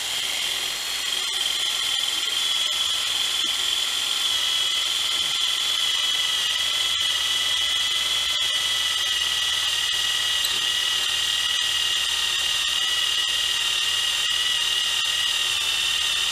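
Electric drill running steadily under load as a twist bit cuts down through thick steel plate, lubricated with cutting fluid. It makes a constant high motor whine whose pitch sags slightly as it goes.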